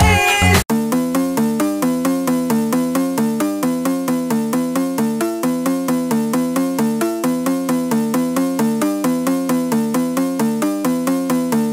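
Music: a pop song cuts off abruptly less than a second in, then a fast, evenly repeating electronic melody of quick short notes runs on.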